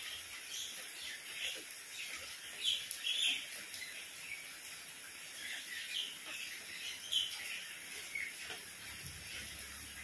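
Steady rain falling on paving and garden plants, with birds giving short chirps scattered through it every second or so. A faint low hum comes in near the end.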